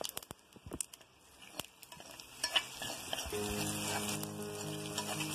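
A spoon scraping and clinking against a small metal pan as a mustard-seed tempering fried in coconut oil is tipped out. From about halfway through, a steady sizzle as the hot oil, shallots, chillies and curry leaves hit the simmering ginger curry.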